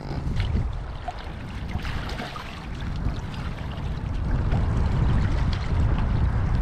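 Wind buffeting the microphone with a steady low rumble, over light water splashing as someone wades into shallow water with crab traps.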